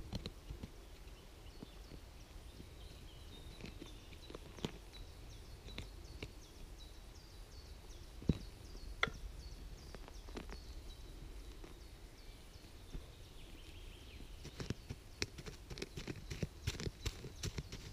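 Hands and a pointed stick scraping and digging in forest soil to uncover a spruce root, with scattered sharp clicks and crackles that come thicker near the end.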